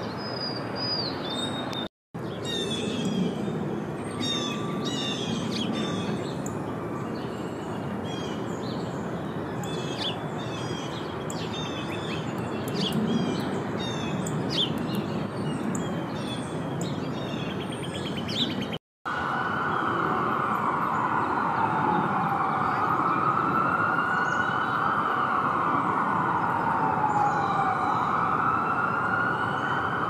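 Many short, quick bird chirps over a steady city background noise. About two-thirds of the way in, after a brief cut, an emergency vehicle siren wails, rising and falling slowly, and becomes the loudest sound.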